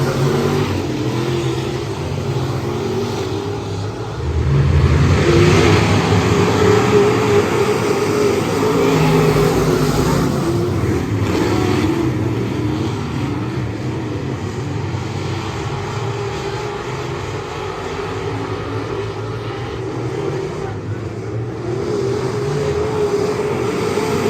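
Race car engine running at speed, its pitch rising and falling with the throttle. It gets louder about four seconds in.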